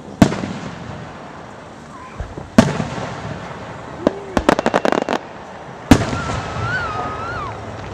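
Aerial fireworks shells bursting: a loud boom right at the start, another about two and a half seconds in and a third near six seconds, each ringing out afterwards. Between the second and third booms, around four to five seconds in, comes a quick run of sharp crackling cracks.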